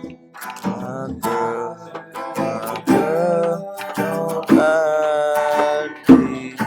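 Acoustic guitar strummed in chords, a strum every second or two, with a voice singing long held notes that bend in pitch over it.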